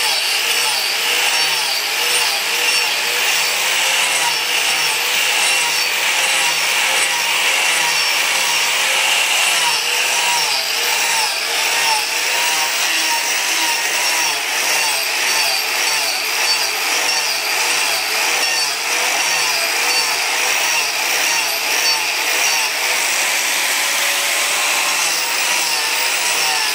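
Hand-held angle grinder with a sanding disc running continuously against red hardwood, a steady motor whine that wavers in pitch as the disc is pressed into and eased off the curved surface, over the scratch of abrasive grinding down the wood.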